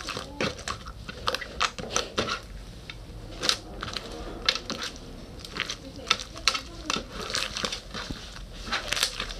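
Hands squishing and pressing a sticky slime, making irregular wet clicks and small pops several times a second.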